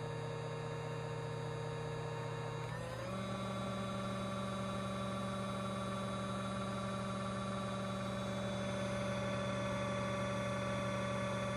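KitchenAid cordless 7-speed hand mixer running quietly with its beaters spinning free in the air, a steady motor hum and whine. About three seconds in, its pitch steps up a notch, then holds steady.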